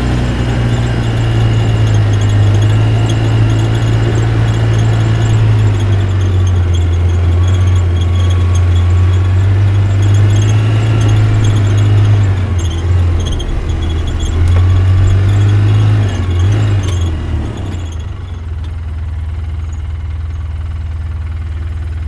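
ATV engine running with the throttle rising and falling, its pitch dipping briefly a few times, then settling to a quieter steady run for the last few seconds.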